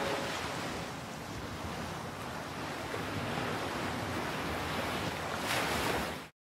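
Surf on a seashore: a steady hiss of waves that swells near the end and then cuts off suddenly.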